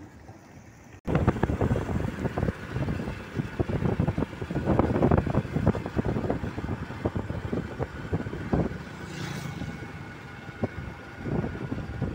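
Wind buffeting the microphone and road noise from a vehicle on the move, cutting in suddenly about a second in and then gusting unevenly.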